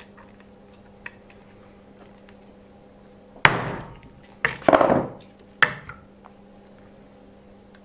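Hammer blows driving a screwdriver onto a small metal RC differential gear set on a wooden block, a strength test to see whether the metal dents. There are four sharp metallic strikes between about three and a half and six seconds in, the middle two in quick succession, each ringing briefly.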